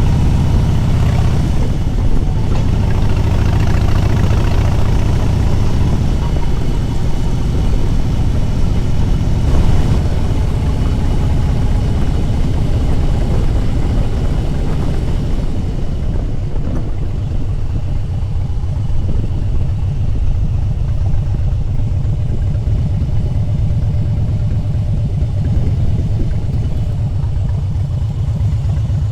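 Harley-Davidson V-twin motorcycle engine running steadily under way, with wind rush over it. The higher rushing eases about halfway through.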